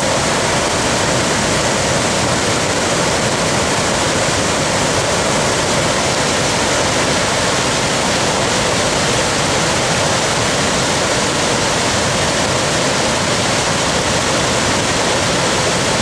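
Large waterfall in monsoon flood: a loud, steady rush of falling water.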